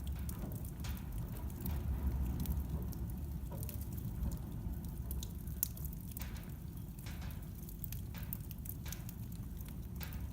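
Fire burning in a fireplace, crackling with irregular sharp pops over a low steady rumble of the flames.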